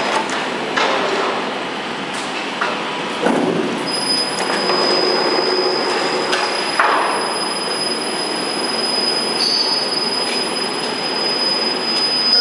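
Door frame roll forming machine running, the steel strip feeding through its forming rollers: a steady mechanical noise with a thin, high metallic squeal that sets in about a third of the way through, and a few knocks along the way.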